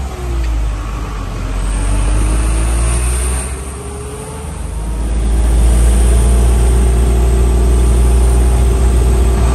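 Truck engine heard from inside the cab while driving: its pitch rises over the first few seconds, eases off about four seconds in, then pulls louder and steady.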